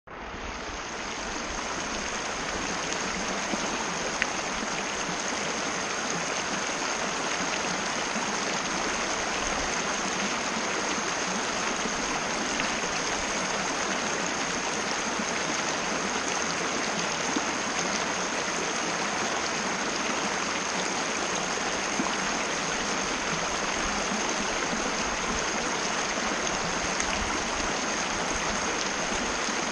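Mountain river water rushing and splashing steadily, fading in over the first second or so. A thin, steady high-pitched tone sits above it throughout.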